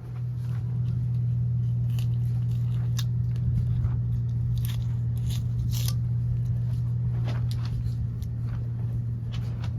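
Steady low hum with scattered light clicks and clacks, like parts or hand tools being handled.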